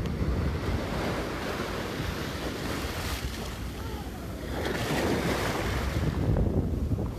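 Atlantic Ocean surf breaking and washing up over the sand, with a louder rush of foam past the middle, and wind buffeting the phone's microphone as a low rumble.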